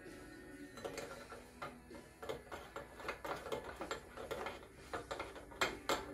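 Light metallic clicks and ticks, irregular, as a hand tool is turned inside the top of a motorcycle fork tube to screw the fork cartridge home. There are two sharper clicks near the end.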